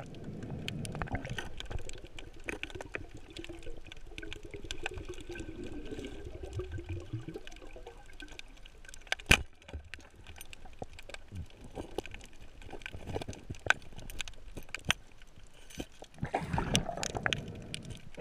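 Underwater sound heard through a camera housing: water rushing and scattered crackling clicks, with one sharp, loud crack a little over nine seconds in, the speargun firing at a rockfish. Near the end comes a short flurry of rustling and scraping as the speared fish is handled on the shaft.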